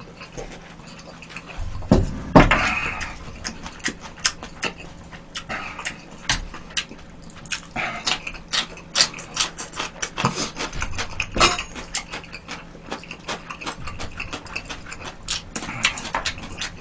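Close-miked chewing and lip-smacking of a mouthful of food, a steady run of wet clicks broken by a few short slurps or breaths.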